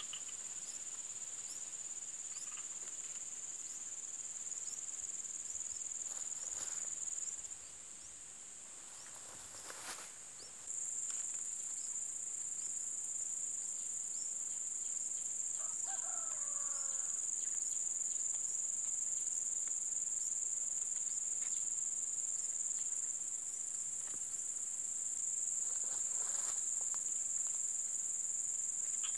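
Steady high-pitched insect chorus, shrilling without a break except for about three seconds, roughly eight seconds in, before it starts up again.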